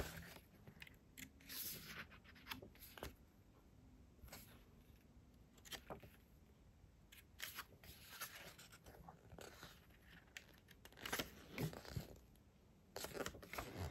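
Pages of a small glossy photo book being turned by hand: faint, scattered paper rustles and flicks.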